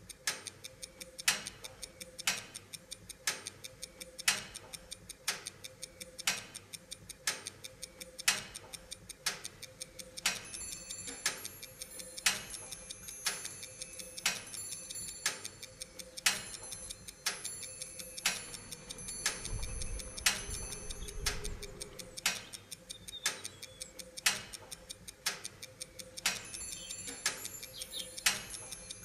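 Clockwork ticking: a sharp tick about once a second over fainter, quicker ticking. High held tones join about ten seconds in.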